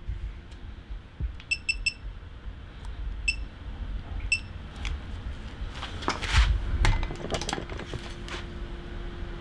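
Short, ringing metallic clicks from a wrench tightening a bicycle crank bolt, three quick ones a couple of seconds in and single ones after, with handling knocks and a dull thud around six to seven seconds in.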